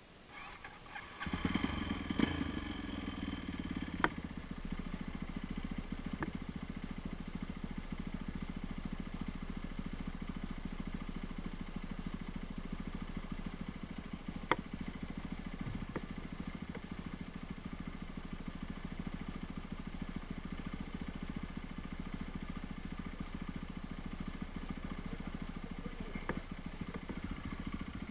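Motorcycle engine that comes in about a second in and then runs steadily, with a few sharp clicks or knocks over it.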